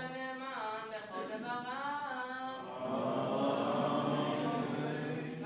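A bar mitzvah boy chanting a Hebrew reading to the traditional synagogue cantillation. The voice sings in melodic phrases that rise, fall and slide between notes.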